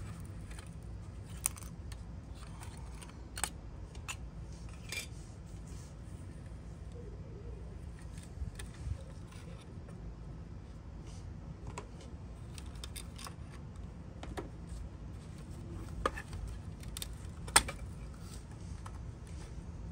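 Scattered sharp clicks and light taps of small plastic parts as the seat and interior pieces of a diecast model car are pried and lifted out, the loudest click a little before the end, over a low steady hum.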